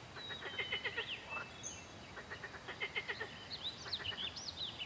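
Male tree frogs giving mating calls in rapid pulsed trains, two bursts in the first three seconds. Birds chirp in short high whistles near the end.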